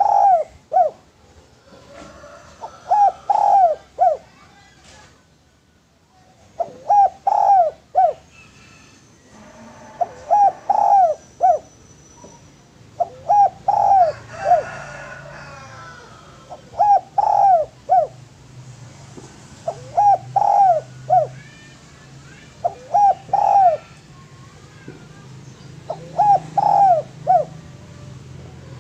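Spotted dove (derkuku/tekukur) cooing: a short phrase of three or four quick coos, repeated about every three to four seconds. Faint chirps of other small birds sound between the phrases.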